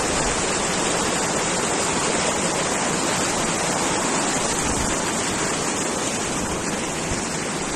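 Shallow, rocky mountain stream rushing over stones, a steady wash of white water that eases slightly near the end.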